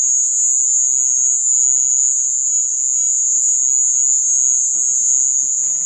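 A loud, continuous, high-pitched screech at a steady pitch, holding without a break. Its source is not found: it may be an animal or something electronic.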